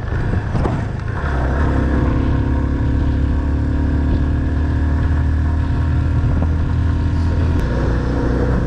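Motorcycle engine running steadily at an even pitch.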